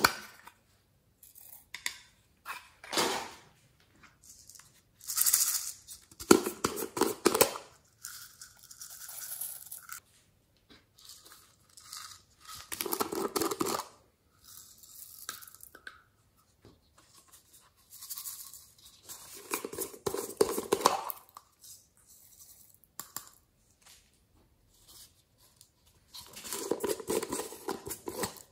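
Handling sounds from small plastic slime and glitter containers: rustling, scraping and the sprinkle of glitter shaken into a glass dish. They come in separate bursts a few seconds apart, with quiet gaps between.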